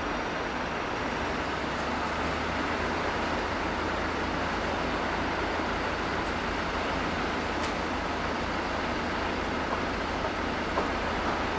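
Steady city street traffic noise with a low hum underneath, and a few faint ticks near the end.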